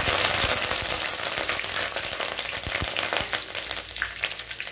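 Dried red chillies and curry leaves sizzling and crackling in hot oil in an aluminium kadai: the tempering for a fish curry. The hiss is loudest at first, right after they go in, and then settles slightly.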